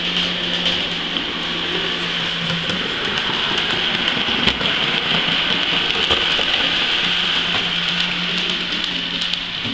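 Model diesel shunter locomotive running along the track close by: a steady whirring hiss of motor and wheels, with a low hum that fades for a few seconds in the middle as the locomotive passes and then returns.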